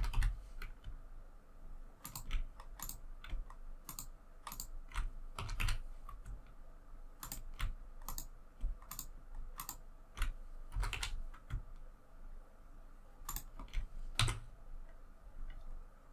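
Computer keyboard keys tapped irregularly, a few sharp clicks a second with short pauses: keyboard shortcuts being pressed while editing a 3D model.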